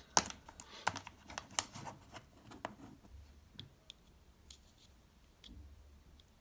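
Small clicks and taps of two CR2032 coin-cell batteries and the plastic sound-valve module of a Bialetti Moka Sound being handled in the fingers: several sharp clicks in the first three seconds, then a few faint ticks.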